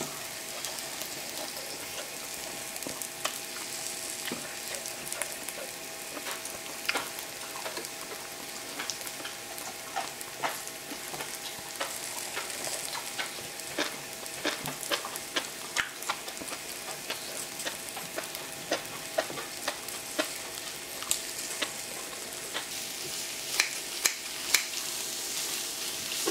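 Pork belly, kimchi and vegetables sizzling steadily on an electric smokeless grill plate, with a faint steady hum underneath and scattered sharp clicks of utensils. Near the end come louder, quicker clicks and scrapes as kitchen scissors and a spatula work the food on the plate.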